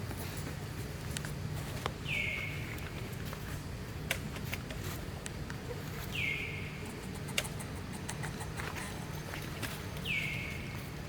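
An animal call repeating about every four seconds, each a short note that falls in pitch and then levels off. A steady low hum and scattered light clicks and rustles run underneath.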